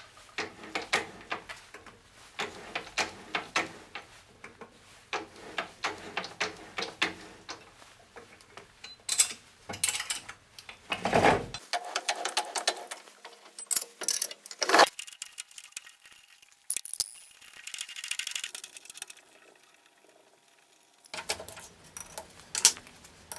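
Irregular metallic clicks, clinks and rattles of hand tools worked at a stopped metal lathe: a tool turned by hand in the part held in the three-jaw chuck, and near the end a T-handle chuck key worked in the chuck.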